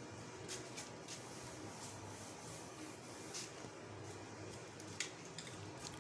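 Quiet room tone with a steady low hum, a few faint scattered clicks, and a sharper click about five seconds in.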